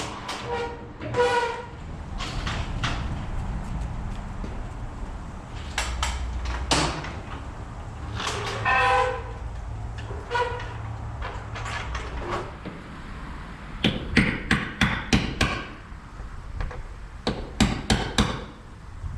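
Hammer nailing aluminum trim wrap onto a garage door frame, with two quick runs of sharp strikes near the end. Earlier come a few short, high-pitched metallic squeals.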